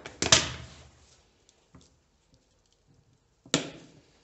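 Plastic bottle being handled: sharp plastic knocks just after the start and a couple of faint clicks. About three and a half seconds in comes a single sharp knock as the upturned bottle, holding concrete drilling dust, is rapped neck-down on the windowsill to empty it.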